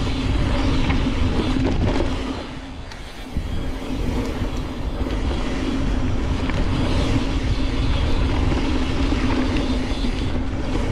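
Mountain bike on a fast, steep downhill run down a dirt trail: wind rushes over the action-camera microphone, and the tyres and frame rattle over the rough ground. It turns briefly quieter for about a second a little past two seconds in.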